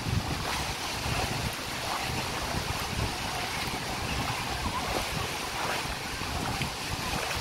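Surf washing on a beach, with wind buffeting the microphone in irregular low rumbles.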